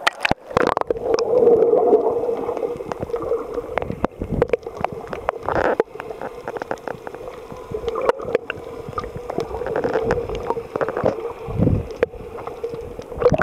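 Water heard through a submerged camera microphone: muffled bubbling and sloshing with a low rumble and many scattered sharp clicks.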